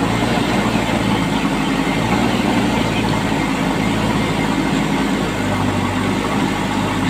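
Diesel engine of a JCB backhoe loader running steadily close by, a continuous low drone whose pitch shifts slightly about five and a half seconds in.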